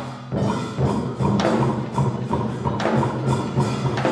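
Traditional Vietnamese ensemble playing live music, with a wood block clicking a quick steady beat over held low notes and a few louder percussion strokes.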